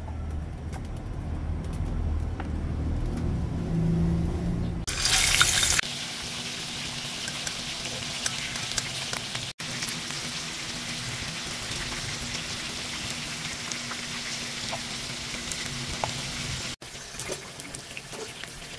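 Pork belly frying in hot oil in a wok. About five seconds in a loud burst of sizzling starts, then settles into a steady sizzle with small pops and crackles. Before that there is a low rumble.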